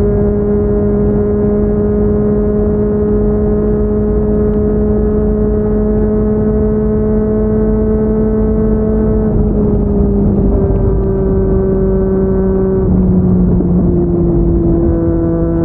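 Yamaha MT-09 three-cylinder engine through a Yoshimura R55 slip-on exhaust, running at a steady engine speed while riding, with road and wind noise underneath. The engine note holds a nearly constant pitch, then drops in small steps about ten seconds in and again about three seconds later.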